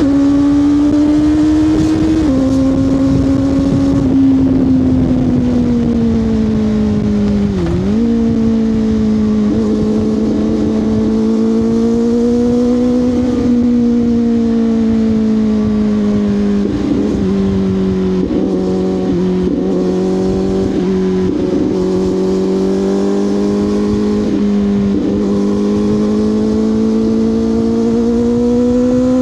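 CFMoto 500SR Voom motorcycle engine running through an SC Project carbon slip-on exhaust while being ridden. The note rises and falls gently with the throttle, with a quick drop and recovery about eight seconds in.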